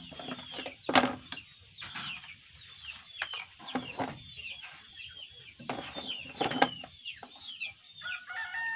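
Chickens clucking and peeping, many short high calls that drop in pitch, repeating throughout. A few sharp clicks or knocks sound about a second in and again around six seconds in.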